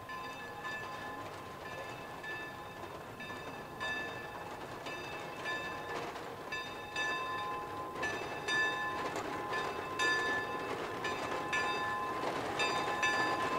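Shay geared steam locomotive No. 5 moving slowly, growing louder as it comes closer. Short pitched notes repeat irregularly about once or twice a second over a steady high tone.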